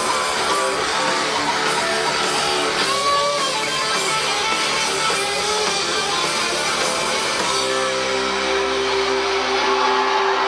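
Rock band playing live through a festival PA, heard from within the crowd, with electric guitars to the fore. About seven and a half seconds in, the band settles onto a held chord that rings on steadily.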